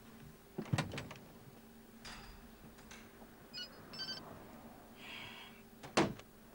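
Several sharp knocks, about a second in and again near the end, with a few short high beeps between them.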